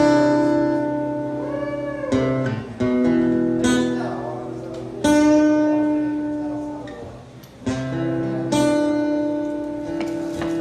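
Acoustic guitar playing about six strummed chords, each left to ring and fade before the next, as the intro to a song.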